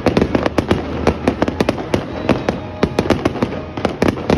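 Aerial fireworks bursting in a rapid, continuous barrage of sharp bangs and cracks, about four or five a second, over a steady rumble.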